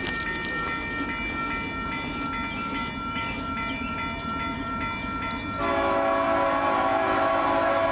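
Horn of an approaching Union Pacific freight train, held as one long steady chord. About five and a half seconds in it gets clearly louder and fuller as the train draws nearer.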